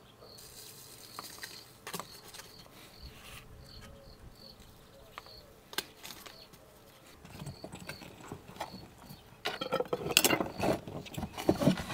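Metal screw lids being twisted onto large glass jars, a loud stretch of scraping and clicking near the end. Before it, a few light clicks of a spoon on the jar, with an insect chirping in short repeated calls underneath.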